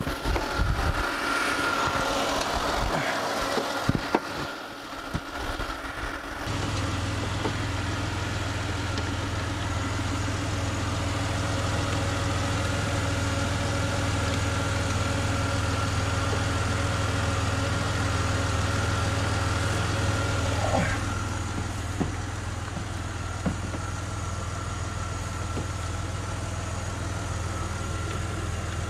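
A car engine idling steadily, the donor car's engine running for a jump start. A deep steady hum sets in about six seconds in and holds.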